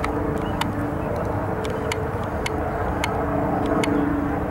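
Helicopter flying past at a distance: a steady drone with a low hum, with a scatter of short high clicks over it.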